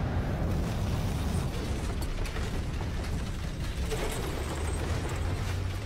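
Commercial sound effects: a steady low rumble with scattered mechanical creaks and clicks.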